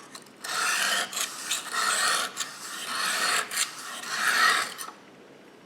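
Kitchen knife blade scraping across a coarse 220-grit aluminium oxide sharpening stone in a series of strokes, stopping near the end. It is grinding the bevel at 20° to raise a burr along the edge.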